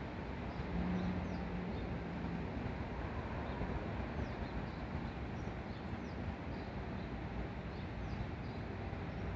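Faint, high peeping of mallard ducklings, short chirps scattered all through, over a steady background rush.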